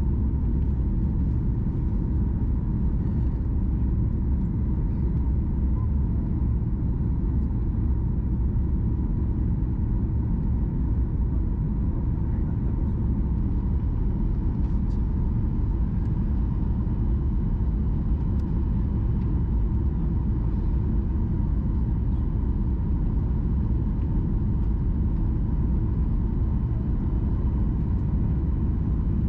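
Steady low rumble of an airliner cabin, engine and airflow noise, with a faint steady whine above it.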